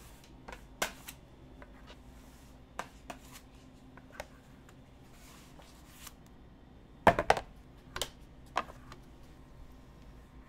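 Chocolate scrapers scraping and tapping on a stone slab as melted chocolate is worked by hand to temper it, with a cluster of louder knocks about seven seconds in.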